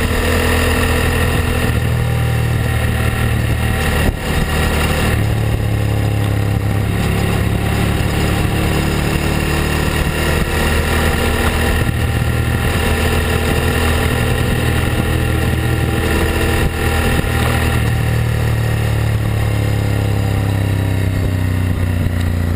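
Ducati Hypermotard's L-twin engine running under way at road speed, loud from a mount on the rear fender, with its pitch drifting as the throttle changes and brief dips in level about 4 and 17 seconds in. Wind and road noise rush steadily underneath.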